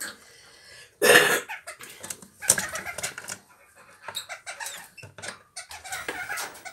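Kakariki (New Zealand parakeet) calls in a nest box: a series of short calls and chatter, the loudest about a second in.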